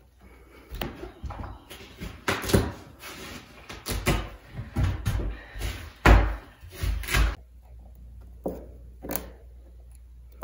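Carpet pad being ripped up off a wooden subfloor by hand: a busy run of tearing, scraping and thudding noises, then a few separate sharp clicks near the end.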